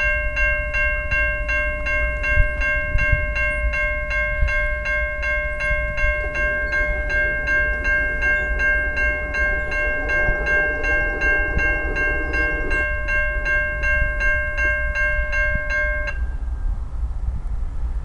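Railroad crossing warning bell ringing rapidly and steadily, about three strokes a second, as the crossing signals activate and the gates lower. It stops suddenly about sixteen seconds in, once the gates are fully down. Low outdoor rumble runs underneath.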